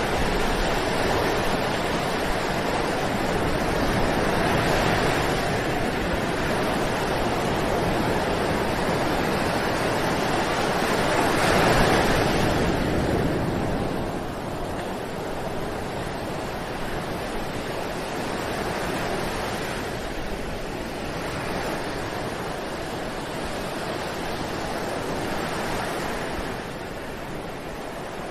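Ocean waves breaking and washing on a beach, a steady surf hiss that swells and recedes, with one larger wave about twelve seconds in.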